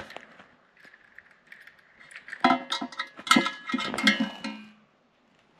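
Stainless steel exhaust pipe clanking as it is handled and hung on a scale: a run of sharp metal knocks, each leaving a bright ringing tone, starting about two and a half seconds in and dying away before the end.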